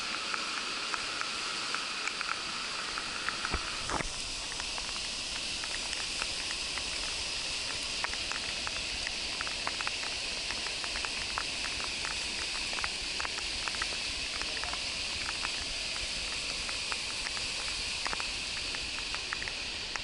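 Rain: a steady hiss with many drops tapping irregularly on the camera. A low rumble comes in about three and a half seconds in.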